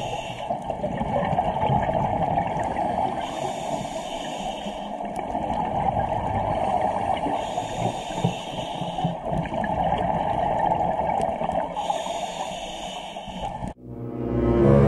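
Underwater water noise picked up by a camera below the surface: a steady, dull rush with a higher hiss swelling roughly every two to three seconds. Music cuts in near the end.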